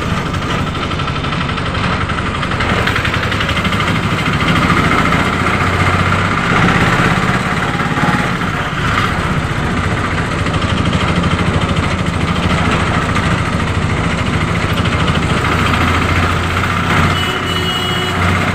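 Auto-rickshaw engine running steadily while riding, heard from the passenger seat, with road and rattle noise.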